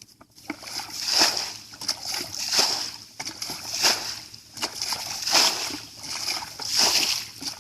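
Water splashing and sloshing in a steady rhythm, one swell of splashing about every second and a half.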